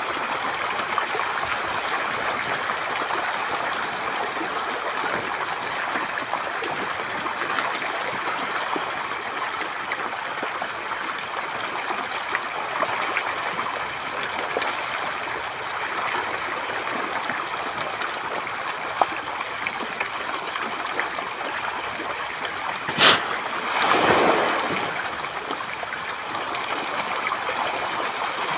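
Many fish thrashing and splashing in shallow muddy water: a continuous churning splash. About 23 seconds in there is one sharp snap, and a second later a short, louder swish.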